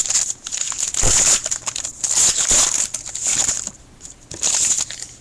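Trading card pack wrapper being torn open and crinkled by hand, in several rustling bursts.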